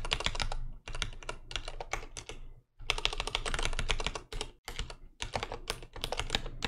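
Computer keyboard being typed on: rapid keystrokes in bursts, with brief pauses between them.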